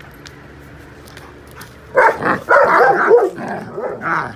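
Dogs play-fighting: a loud burst of barks and yips starts about halfway through and lasts about two seconds.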